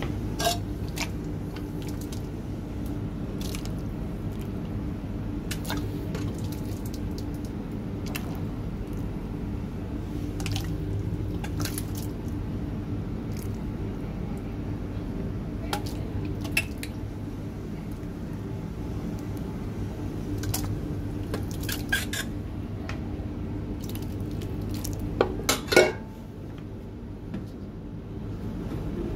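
A metal ladle knocking and scraping against a steel cooking kettle and pan as thick meat sauce is ladled out, with scattered sharp clanks and a quick cluster of the loudest ones near the end. Underneath runs a steady low machine hum, which drops a little after the last clanks.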